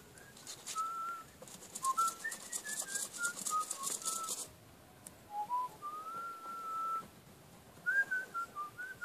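A person whistling a short tune, single clear notes stepping up and down with one longer held note near the middle. A scratchy rustle runs under it for about two seconds early in the tune.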